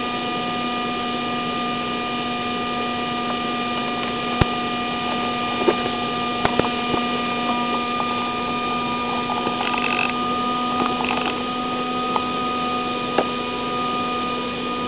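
Steady electrical hum and hiss with several constant whining tones on the analog FPV video link's audio, with the plane's motor not running. A few faint clicks break in as the plane is handled.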